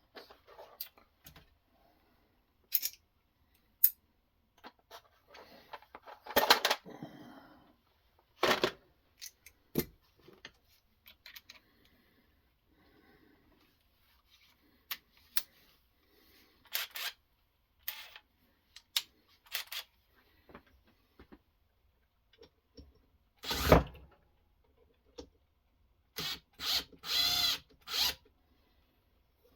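Scattered clicks, knocks and a few brief scraping strokes, the loudest about two-thirds of the way through and a cluster near the end: a knife and its sharpening-system parts being handled and worked.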